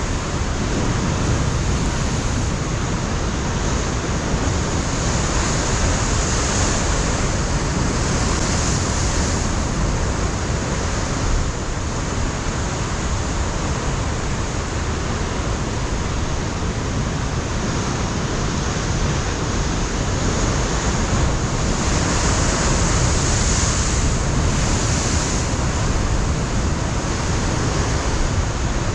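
Ocean surf breaking and washing over a rocky shore, a steady rush of waves with wind buffeting the microphone. The surf swells louder twice, about a quarter of the way in and again about three quarters of the way through.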